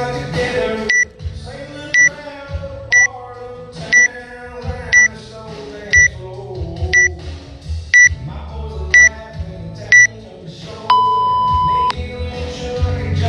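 Workout interval timer counting down: ten short high beeps one second apart, then a single long, lower beep that signals the start of the timed workout. Music plays underneath.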